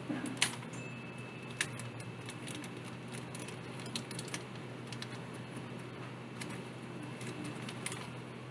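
Scattered sharp little clicks and taps of small hard parts and tools being handled while working on an open laptop, the strongest about half a second in, over a steady low hum.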